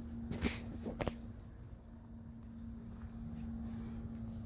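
Insects, likely crickets, trilling steadily in a continuous high-pitched buzz, with a faint steady low hum beneath and a few short knocks of footsteps or camera handling in the first second and a half.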